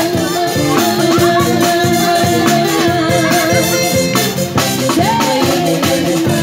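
Two women singing into microphones over a live band of drum kit and guitars. A long note is held for about three seconds, then a note rises and falls about five seconds in, over a steady drum beat.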